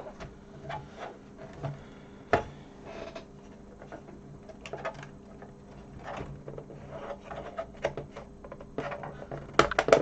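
Scattered clicks, taps and knocks of plastic computer case and keyboard parts being handled and fitted together, with one sharp knock about two and a half seconds in and a quick cluster of clicks near the end, over a faint steady hum.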